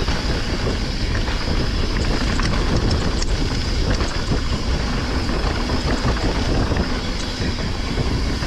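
Downhill mountain bike rolling fast down a rooty dirt forest trail: a steady rumble of tyres on dirt with scattered rattles and clicks from the bike, and wind on the microphone.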